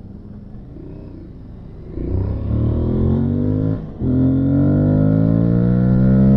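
Aprilia Tuareg 660's parallel-twin engine accelerating hard from low speed. It runs quietly for about two seconds, then the engine note climbs, dips briefly at an upshift about four seconds in, and climbs again.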